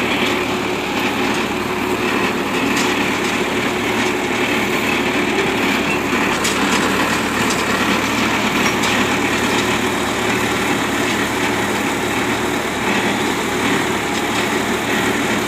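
Tractor-driven VIKAS 235 baler running steadily, engine and baler machinery at work, with a few faint clicks scattered through it.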